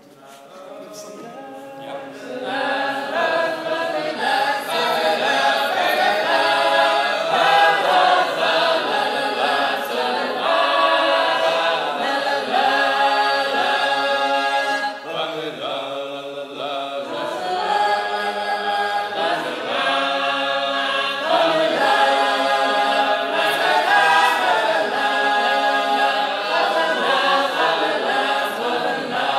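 A Sacred Harp shape-note group sings unaccompanied in loud four-part harmony. The singing comes in about two seconds in, and there is a short break about halfway.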